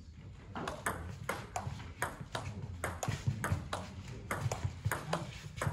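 Table tennis rally: the ball clicking off the bats and the table in a quick, even run of sharp ticks, about two to three a second, beginning just after the serve about half a second in.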